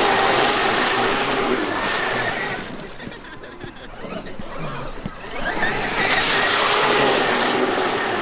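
Traxxas X-Maxx electric RC monster truck driving: a steady motor whine over a rush of wheel noise. It fades for about three seconds in the middle as the truck moves off, then is loud again as it comes back close.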